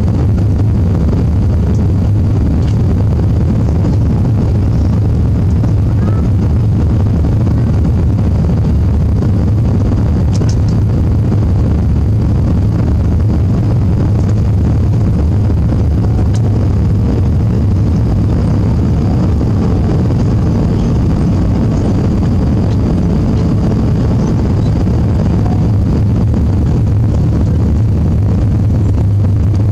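Steady low rumble of engines and rushing air, heard inside the cabin of an Airbus A320 on final approach to landing.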